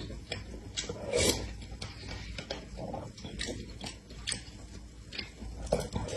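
Eating sounds from a milk-tea dessert soup: a metal spoon clicking and scraping against a clear plastic cup, with soft sipping and chewing. There is a fuller sip about a second in and another near the end as the spoon goes to the mouth.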